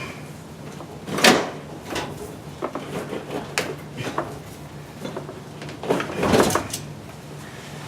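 Old electrical cable being tugged and dragged out of the wall: irregular scraping pulls and knocks, the loudest about a second in and a longer drawn-out scrape near the end.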